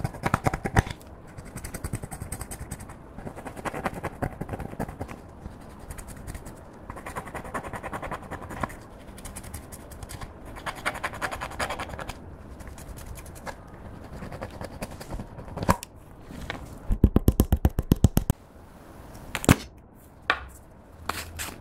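A plastic stick scraping and crumbling pressed eyeshadow in a plastic palette, in repeated scratchy strokes with occasional sharp knocks. Near the end comes a quick run of taps lasting about a second, followed by a few single knocks.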